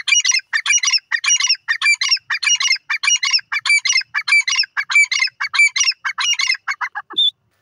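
Grey francolin calling loudly: a fast run of harsh repeated phrases, about three a second, that shorten and trail off near the end into a single clear whistled note.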